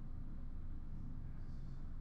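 Quiet room tone: a steady low hum with no distinct event.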